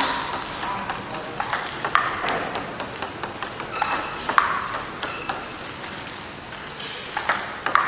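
Table tennis ball clicking off bats and bouncing on the table as serves are received and returned. The returns are played with Milky Way Neptune long-pimpled rubber. A loud hit comes about every two seconds, with lighter bounce ticks between.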